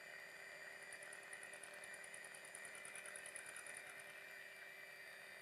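Electric hand mixer running with a faint, steady hum, its beaters whisking cream in a glass bowl.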